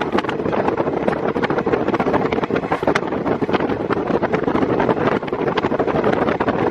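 KiHa 48 diesel railcar running, heard through an open window: its engine and the wheels on the rails mixed with heavy wind buffeting on the microphone.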